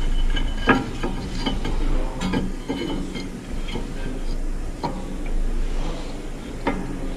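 A new brake disc being seated on a car's wheel hub and the brake caliper handled: a handful of sharp metallic clicks and knocks at uneven intervals, over a steady low hum.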